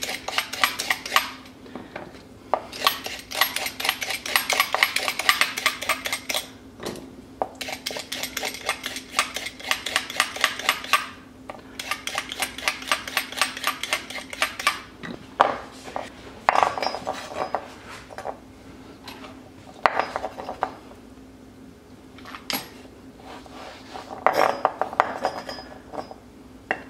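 Vegetable peeler scraping down raw carrots in fast runs of strokes, each run lasting a few seconds, with strips of peel coming off. Partway through, the strokes thin out into fewer, separate scrapes and knocks on a wooden cutting board. A faint steady low hum runs underneath.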